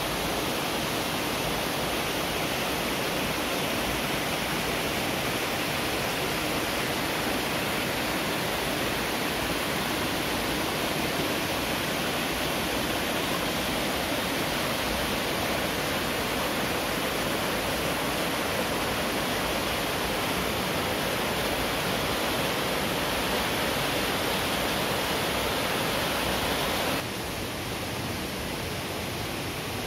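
Waterfall rushing steadily, an even wash of falling water with no other sound standing out. It drops slightly in level near the end.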